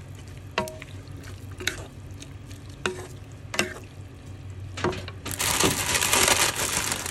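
Noodles being stirred and tossed in a hot pan with a wooden spatula. The spatula knocks against the pan about five times, roughly a second apart, each with a short ring. A little past five seconds in comes a loud stretch of sizzling as the wet noodles are turned over in the hot pan, over a steady low hum.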